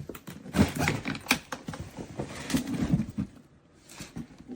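A run of sharp plastic clicks and knocks from a hardside polycarbonate suitcase as its lock button is pressed and the case is opened, dying away about three seconds in.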